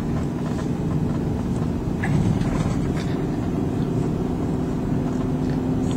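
Car driving along, heard from inside the cabin: a steady rush of road and engine noise with a faint low hum.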